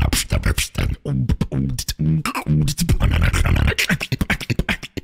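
A beatboxer performing a fast, dense rhythm made with the mouth: sharp clicking and hissing drum hits, deep kicks, and short repeated pitched bass notes.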